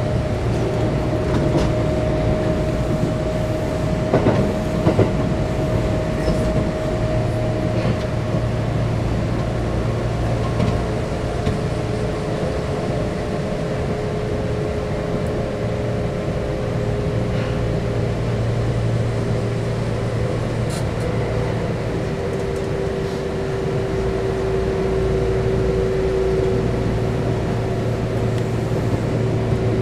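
Electric train running along the line, heard from inside the car: a steady rumble of wheels on rail with a few sharp clicks, and a steady whine that steps down in pitch partway through.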